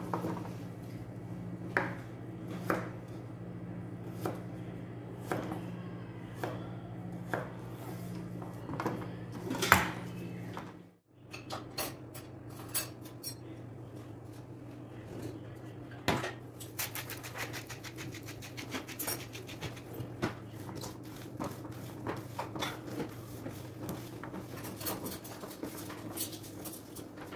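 Chef's knife chopping carrots on a plastic cutting board, a sharp strike about once a second. After a short break, gloved hands toss oiled carrot slices on a steel baking tray, a quick clatter of small clicks and scrapes. A steady low hum runs underneath.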